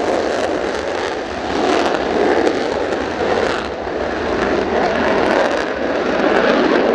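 Mitsubishi F-2 fighter's single F110 turbofan at full afterburner on its takeoff roll: a loud, rough jet roar with a crackling edge as the jet accelerates and lifts off.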